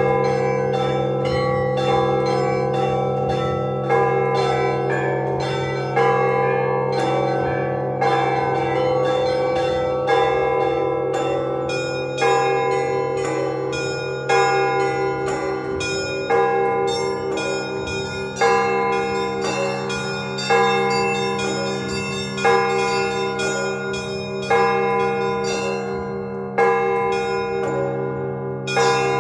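Russian Orthodox church bells ringing to call the faithful to a service: a big bell struck about every two seconds, with rapid, repeated strikes of smaller bells over it and the low bell tones ringing on between strokes.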